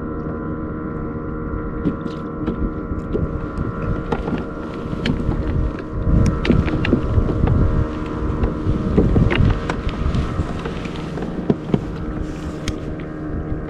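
Kayak moving across choppy water, with the steady whine of its drive running throughout. Small waves splash against the hull, and wind buffets the microphone in gusts around the middle.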